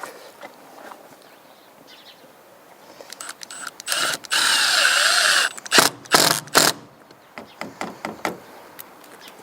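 Cordless drill driving a wallboard screw into plasterboard: a run of a little over a second about halfway through, then three short bursts, with light clicks and knocks around it.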